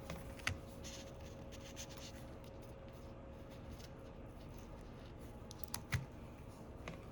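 Faint handling of small tools and iPhone parts on a repair bench: a few light clicks and taps, the clearest a tap about six seconds in, over a faint steady hum.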